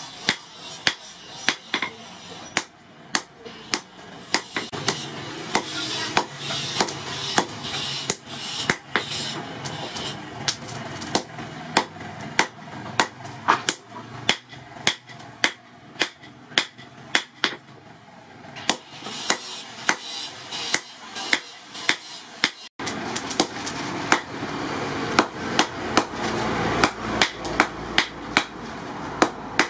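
Hand hammer forging a red-hot steel knife blade on a steel post anvil: a steady run of sharp metal-on-metal blows, about two to three a second, over a steady background noise.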